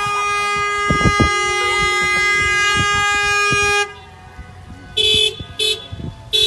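Car horns honking in salute from cars driving past: one long steady honk that stops about four seconds in, then two short beeps and another honk starting near the end.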